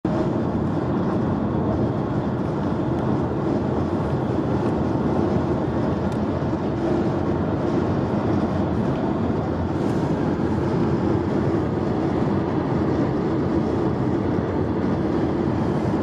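Steady road and tyre noise inside a car's cabin while driving at motorway speed: an even, low rumble.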